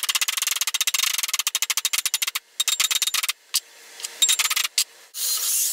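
Rapid runs of sharp clicks from hand work on the bike frame, fast and continuous at first, then in shorter bursts with pauses.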